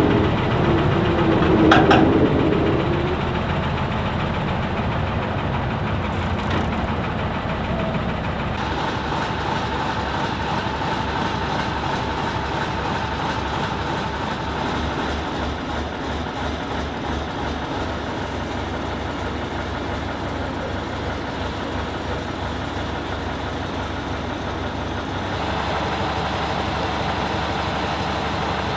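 Heavy diesel truck engines running and driving. The sound shifts abruptly a couple of times, and a steady whine is heard through the middle part.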